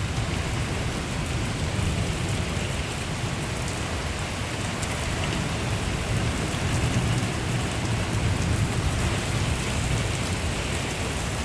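Steady thunderstorm rain falling, with a low rumble underneath from wind buffeting the microphone.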